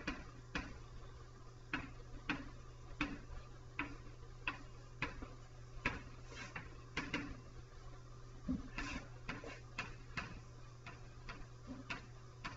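Chalk writing on a blackboard: irregular sharp taps and short strokes as the letters are formed, about two a second.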